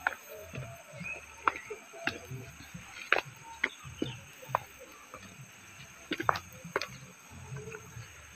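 Footsteps in sandals on a stone path: a dozen or so irregular sharp clicks and scuffs over a low rumble. Under them runs a steady high-pitched insect buzz.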